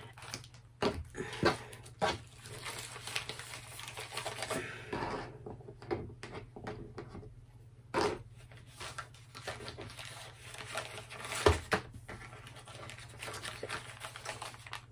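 Small plastic diamond-painting tools and a stack of plastic baggies being handled and packed away: light plastic rustling with a few sharp clicks and taps, the loudest late on, over a low steady hum.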